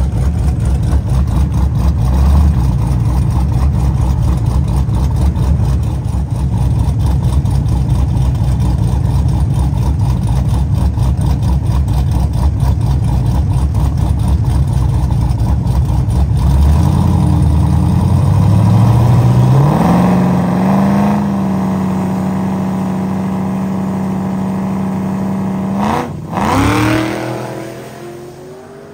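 Two Camaro drag cars' engines idling with a low, rapid pulsing at the starting line, then revving up and holding steady high revs for several seconds. About 26 seconds in they launch with a sudden loud burst and a fast-rising engine note that fades as the cars pull away down the strip.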